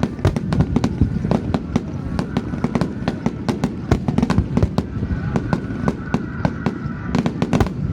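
Aerial fireworks going off in a rapid barrage: many sharp bangs and crackles a second over a continuous low rumble.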